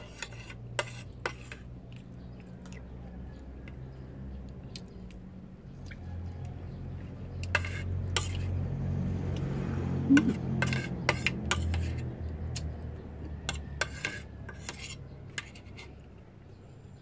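A spoon clinking and scraping on a metal plate as someone eats, in scattered taps throughout. A low rumble swells up in the middle and fades again.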